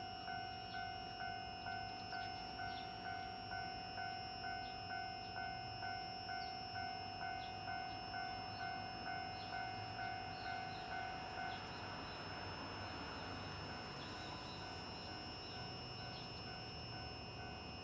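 Japanese railway level-crossing warning bell ringing in a steady two-tone ding, about twice a second, then stopping about two-thirds of the way through. After it stops, a faint steady hiss remains.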